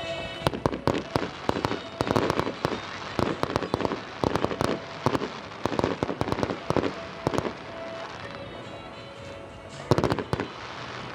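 Display fireworks bursting overhead in a rapid, irregular series of sharp bangs and crackles for about seven seconds, then a short dense cluster of bangs near the end, with music playing underneath.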